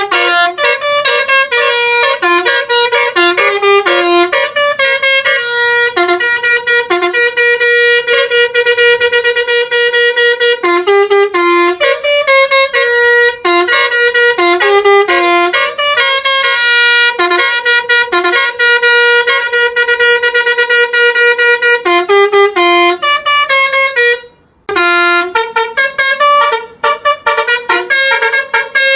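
Basuri telolet bus horn playing a tune: quick runs of loud horn notes, some held long, with a brief break about 24 seconds in.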